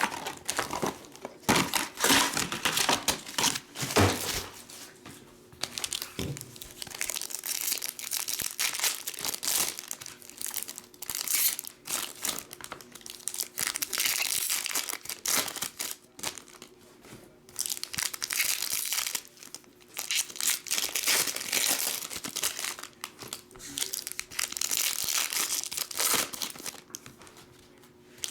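Trading card pack wrappers crinkling and tearing as packs are opened and handled, in repeated bursts with short pauses.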